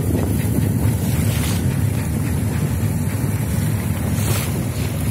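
Wind buffeting the microphone over the steady low rumble of a boat engine, with waves slapping and splashing on the water.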